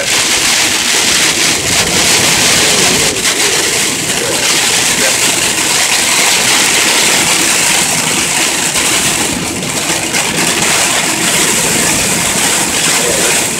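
Heavy rain mixed with sleet and slush hitting the windshield and roof of a vehicle at highway speed, heard inside the cab as a loud, steady hiss, along with tyre and road noise.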